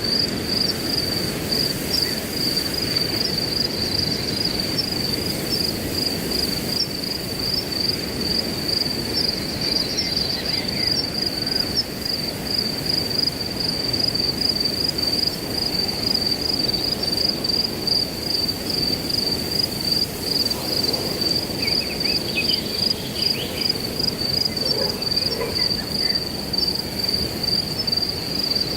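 A cricket chirping steadily in an even, rapid rhythm, over a low rushing of wind through grass. A few brief bird chirps come in near the end.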